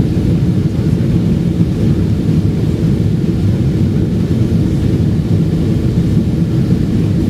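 Steady low rumble of a Boeing 777-200's jet engines and rushing air, heard inside the passenger cabin during the climb after takeoff.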